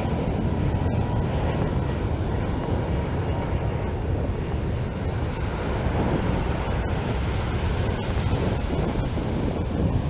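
Steady wind noise on the microphone over the wash of ocean surf breaking on the shore.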